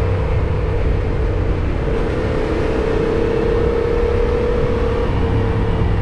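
Yamaha MT-07's 689 cc parallel-twin engine running steadily at cruising speed, under a constant haze of wind and road noise.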